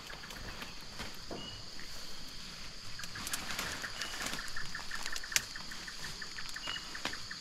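Creek-bank outdoor ambience: a steady high-pitched drone, a few short bird chirps, and from about three seconds in a fast ticking trill. Scattered clicks and rustles come from hands working in the leaves at the water's edge, the sharpest about five seconds in.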